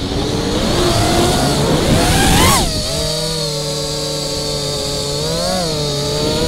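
FPV racing quadcopter's 2207 brushless motors and propellers whining as the throttle changes: the pitch climbs steeply to a peak about two and a half seconds in and drops sharply, then holds steady with a short blip of throttle near the end.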